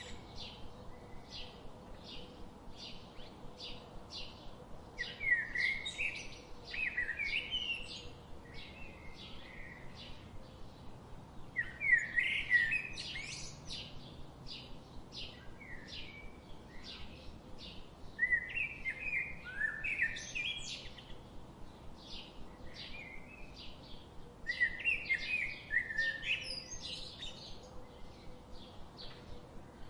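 Budgerigars calling: short chirps repeating about two or three times a second, broken every six seconds or so by a louder burst of chattering warble.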